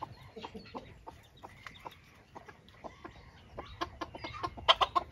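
Bantam chickens clucking in a loose, uneven string of short calls, growing louder and busier near the end.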